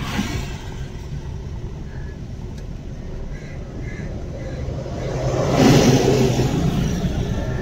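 Car engine and road noise heard from inside the cabin while driving, a steady low hum that swells into a louder rush of noise about five to six seconds in.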